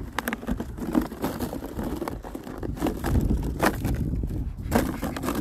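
Wind buffeting the microphone, with scattered crisp crunches in packed snow, about half a dozen in all, as a dog digs and bounds through it.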